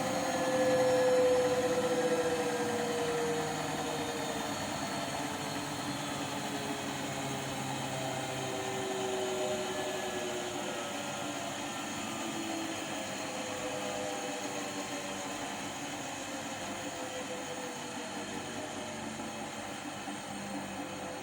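Washing machine running, with a whine that slowly falls in pitch over a steady noisy hum. This is the odd noise that the owner noticed during the wash cycle.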